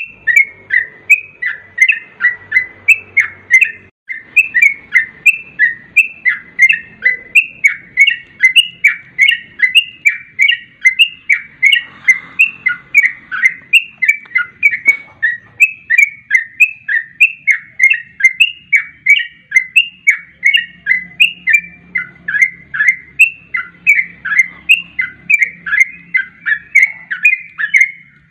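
Yellow-vented bulbul (trucukan) calls in a fast, rapid-fire chattering run: short chirping notes repeated evenly at about three a second without a break, the kind of looped call used as a lure to set a caged bulbul singing.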